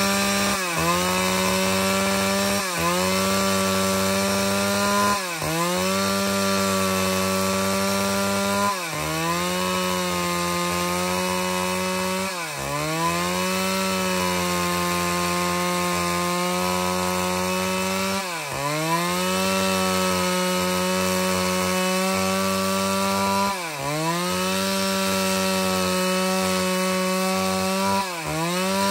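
Stihl MS 381 two-stroke chainsaw running at high revs, sawing boards from an angico preto (black angico) hardwood log. Its engine note holds steady but sags briefly and climbs back about eight times, every few seconds.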